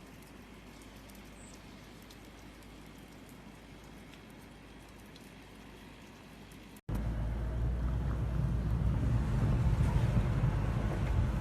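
Faint steady hiss with a few small ticks, then, after an abrupt cut about seven seconds in, strong blizzard wind buffeting the microphone with a heavy low rumble.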